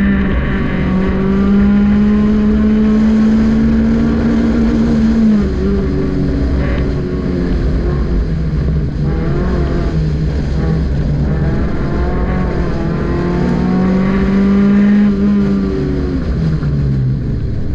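Honda Civic's four-cylinder engine, heard from inside the cabin under hard acceleration on an autocross course. It is held at high revs in second gear for about five seconds, up near the rev limiter, then drops and wavers as the driver lifts for the slalom. It climbs again and falls off near the end as the car slows.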